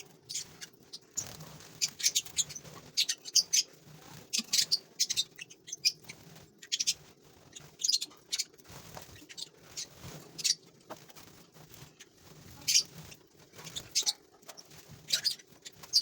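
Lovebirds in a colony giving many short, high-pitched chirps and squeaks, irregular and overlapping.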